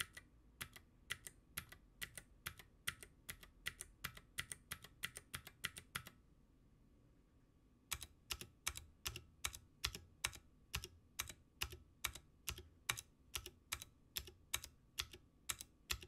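Keychron Q1 mechanical keyboard with clicky blue switches and PBT keycaps being typed on: a run of sharp clacking keystrokes, about three or four a second, that stops for about two seconds around six seconds in and then resumes. With the PBT caps the switches' clack is softened, with more of the mid and low tones coming through and the ringing metallic ping much quieter.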